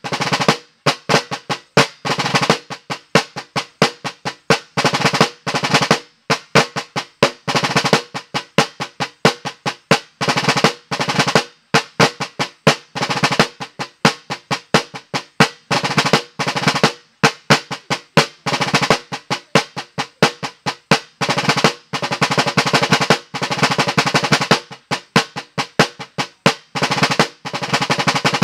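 Rope-tensioned military side drum beaten with wooden sticks, playing a rudimental drum part in a steady rhythm: rolls and strokes broken by short pauses.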